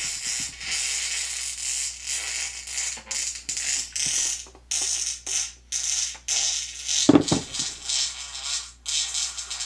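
Fart sound effects played through a phone's speaker: a run of noisy, spluttering sounds broken by short gaps, the loudest a low burst about seven seconds in.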